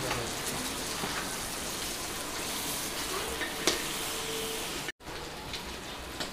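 Fish pieces sizzling as they fry in oil in a black iron pan, with one sharp metallic clink of the spatula against the pan a little after three and a half seconds in. The sizzle cuts off abruptly just before five seconds in, then a quieter hiss follows.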